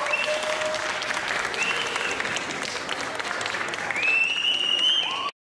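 Audience applauding, with a few high cheers over the clapping. The sound cuts off abruptly near the end.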